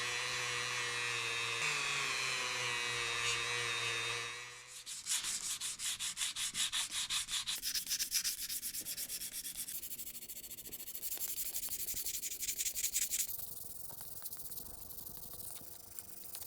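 Sanding. A steady running hum lasts about four seconds, then rapid back-and-forth rubbing strokes come about three or four a second and grow quieter near the end.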